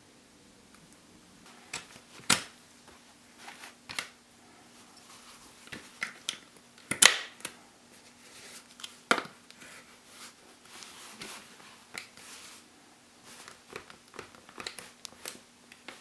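Plastic GoPro mounts and camera housing being handled: a J-Hook buckle mount and the clear housing clicking and knocking against each other and a helmet, in scattered sharp clicks with the loudest about seven seconds in, and soft rustling of the cloth between them. A faint steady hum runs underneath.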